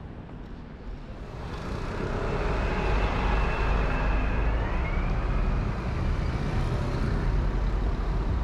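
Road traffic: a motor vehicle passing close by, getting louder from about a second and a half in, with a faint high whine that rises in pitch near the middle.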